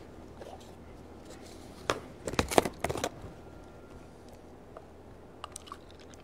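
Handling clatter of plastic and paper containers on a plastic tray: a short burst of knocks and clicks about two seconds in as a cup is set down and a plastic jug picked up. A few faint ticks follow near the end over quiet room tone.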